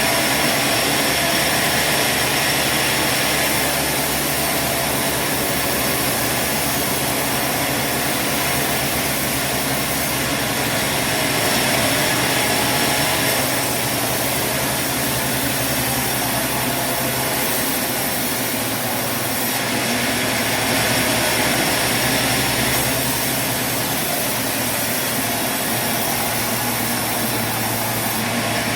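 Sawmill machinery running: a steady mechanical drone and hiss, swelling slightly every ten seconds or so.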